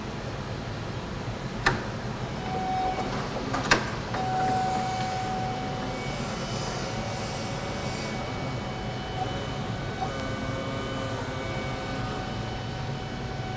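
A forklift running, a steady hum with a high whine over it, while its forks work under a stripped forklift chassis. Two sharp metal knocks come about two and four seconds in, and a hiss runs for a few seconds from about the middle.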